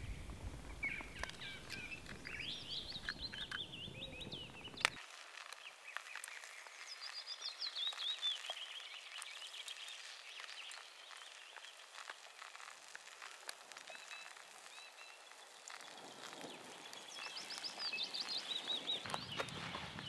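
Songbirds singing in woodland: several phrases of quick, high notes that step down in pitch, each lasting a couple of seconds. A single sharp click about five seconds in.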